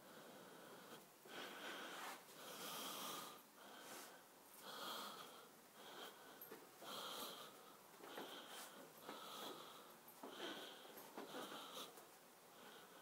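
Faint, wheezy breathing close to the microphone, about one breath a second.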